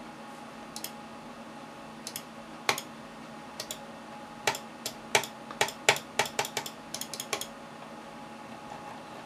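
Logitech G203 gaming mouse's click switches being pressed: a few single clicks, then a quicker run of about a dozen clicks in the middle, stopping a couple of seconds before the end.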